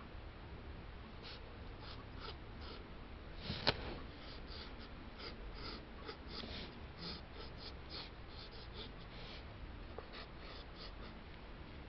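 Mechanical pencil sketching on sketchbook paper: a run of short, light scratching strokes, with one sharp knock about three and a half seconds in.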